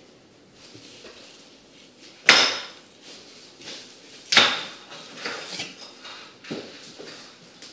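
Bubba Blade fillet knife knocking and scraping against a plastic cutting board while filleting a croaker: two sharp knocks about two seconds apart, then a run of softer cuts and taps.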